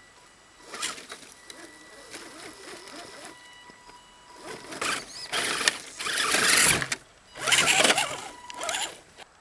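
Electric motor of an Axial SCX10 RC crawler whining as it crawls up close through brush, with loud rustling and scraping of fir branches and leaves against the truck in bursts during the second half, dipping briefly between them.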